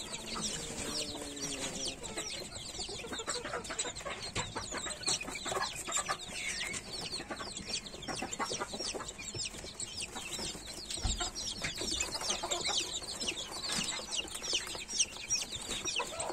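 A brooder full of young chicks peeping: a dense, continuous chorus of short, high, downward-sliding chirps from many birds at once.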